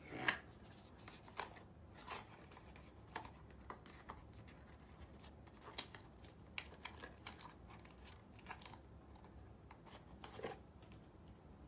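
A small cardboard box being handled and opened by hand: scattered light taps, scrapes and rustles of thin card, the loudest just after the start.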